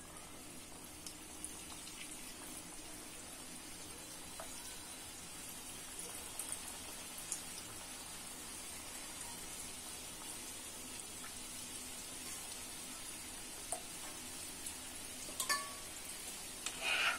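Mava gulab jamun balls frying in hot ghee in an iron kadhai: a steady, soft sizzle with a few faint ticks, and a brief louder sound near the end.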